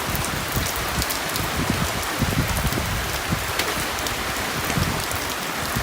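Heavy rain falling steadily during a storm, with many separate drop hits standing out close by.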